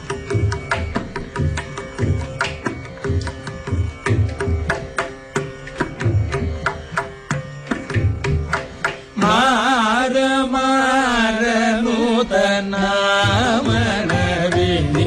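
Carnatic music in raga Devagandhari: quick, rhythmic hand-drum strokes over a steady drone, then about nine seconds in a man's voice comes in, singing a line with wavering, ornamented pitch bends while the drumming drops back.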